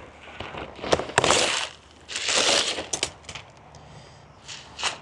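Plastic kite packaging crinkling and rustling as it is handled and pulled open, in two bursts about one and two seconds in, with a few sharp clicks and snaps.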